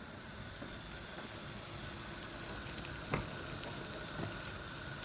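Sliced almonds frying in butter and a little oil in a pan: a steady, fairly quiet sizzle that grows slightly louder, with a couple of light knocks as a spoon stirs them.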